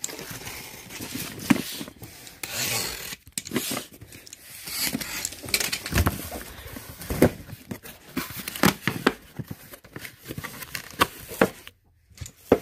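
Box cutter slicing through packing tape on a cardboard box, then the cardboard flaps scraping and tearing as they are pulled open, with a few sharp knocks.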